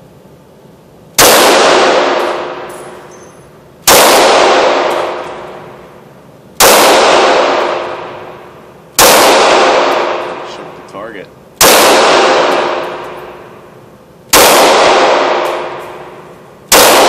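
Seven single shots from an FN Five-seveN pistol in 5.7x28mm, fired slowly at an even pace of about one every two and a half seconds. Each shot is followed by a long echoing decay off the walls of an indoor shooting range.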